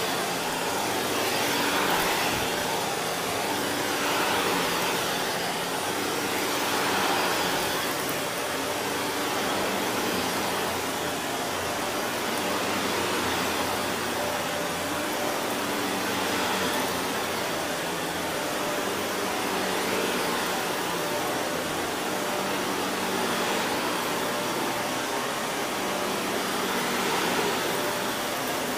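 Shark Navigator upright vacuum running over carpet and picking up crunchy grit embedded in the pile. Its steady motor hum swells and eases about every two to three seconds with each push-and-pull stroke.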